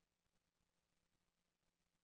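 Near silence: a faint, even hiss with a low steady hum underneath.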